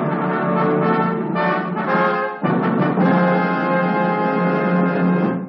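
Brass-led orchestral film score: sustained chords, a brief break about two and a half seconds in, then a long held chord that cuts off abruptly.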